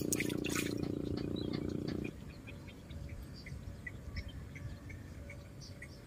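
A steady droning hum that cuts off suddenly about two seconds in. After it, only faint, short, scattered chirps remain.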